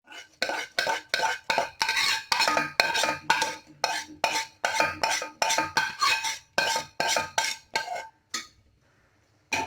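A spoon stirring caramel-coated popcorn in a pressure cooker, scraping and clinking against the metal pot in quick, even strokes of about two or three a second. The caramel is being mixed through fast before it hardens. The stirring stops shortly before the end.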